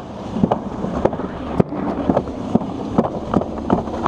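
Alpine slide sled rumbling and rattling as it runs fast down the trough, with sharp irregular knocks that come closer together near the end. Wind buffets the microphone.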